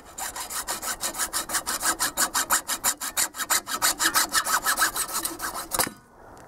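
Hacksaw cutting through gray PVC electrical conduit, a fast, even run of rasping strokes that stops abruptly near the end as the cut finishes.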